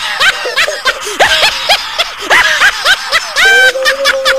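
Laughter: a quick run of short, high-pitched giggles, then one longer held note near the end.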